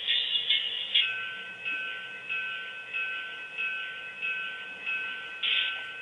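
Locomotive bell sound from the DCC sound decoder of a Proto 2000 HO-scale GP9i model diesel, played through the model's small speaker. It rings steadily, about one and a half strokes a second.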